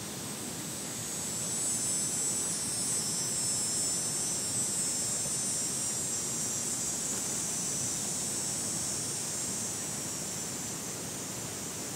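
Cicada buzzing, a steady high-pitched drone that swells about a second in and eases off a little near the end.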